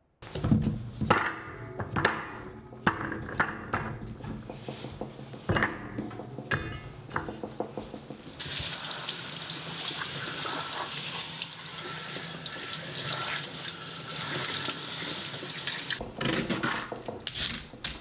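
Kitchen tap running into a steel sink, water splashing through an enamel colander of root vegetables for about eight seconds in the middle. Before it come scattered kitchen knocks and clunks, and near the end short clicks and scrapes of a peeler working a parsnip on a wooden cutting board.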